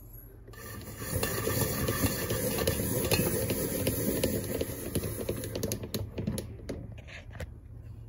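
Hand-cranked apple peeler-corer turning, its blade shaving a spiral of peel off an apple with a dense run of fine scraping clicks that starts about half a second in and lasts about five seconds. Near the end come a few separate clicks and knocks as the peeled apple is pulled off the prongs.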